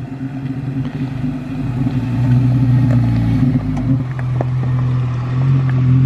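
Jeep Wrangler's engine running at crawling speed, growing louder over the first couple of seconds as it comes down the trail and passes close by, with a few small clicks of loose rock under the tyres.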